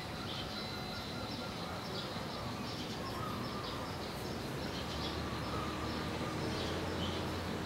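Outdoor ambience: steady background noise with faint, scattered chirps of small birds. A low steady hum comes in about five seconds in.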